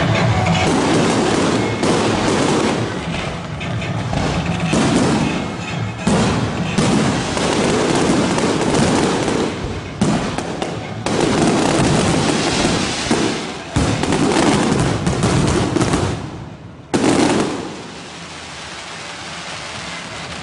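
Electronically fired fireworks barrage heard at close range: a dense, rapid string of crackles and bangs. It ends with one loud bang about 17 seconds in, after which it dies down to a lower rumble.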